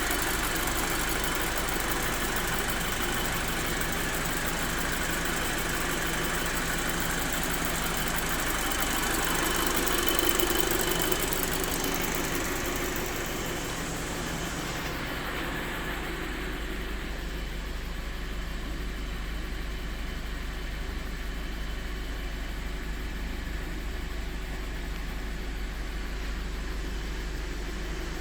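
Rebuilt Audi 2.0 TFSI turbocharged four-cylinder engine idling steadily. It swells a little about ten seconds in, then settles to a lower, duller idle from about thirteen seconds on.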